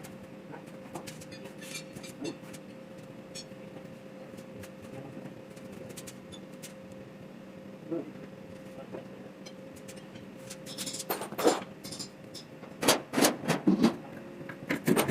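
Scattered light metallic clicks and clinks of tools and parts being handled over a faint steady hum, with a cluster of louder knocks near the end.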